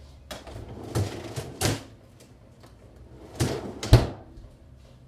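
Handling noises of a container being moved: a few knocks and short scrapes, the loudest about four seconds in.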